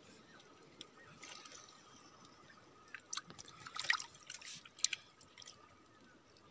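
Shallow seawater in a reef tide pool trickling and dripping around rocks, with a few short, sharp splashes about four to five seconds in.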